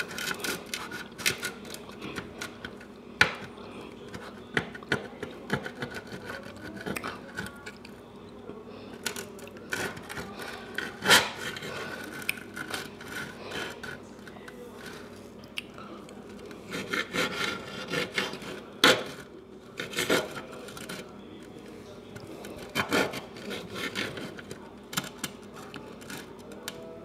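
A steak knife sawing back and forth through a breaded country fried steak, the blade scraping and clicking against the dish beneath in quick irregular strokes, with a few sharper clacks.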